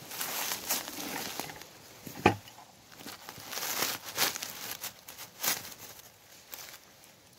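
Dry grass and leaf litter rustling and crackling in bursts as a mushroom picker steps and crouches through it and pushes the grass aside by hand, with one sharp knock about two seconds in.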